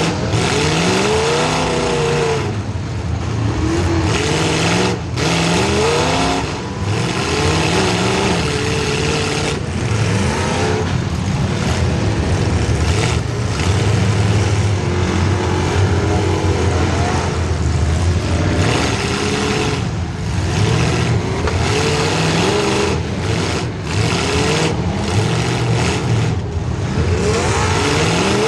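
Demolition derby car's small-block Chevy V8 engine revving hard, its pitch climbing and falling again and again as the car drives.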